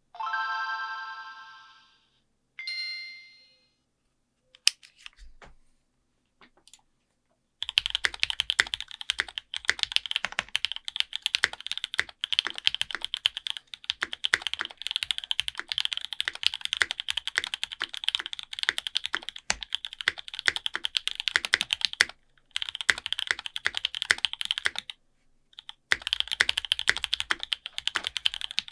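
Fast typing on a Graystudio Think6.5 v2 mechanical keyboard with lubed and filmed Alpaca v2 linear switches on an FR4 plate and GMK keycaps, starting about seven seconds in and broken by two short pauses near the end. Before the typing, two ringing dings sound in the first few seconds, followed by a few single clicks.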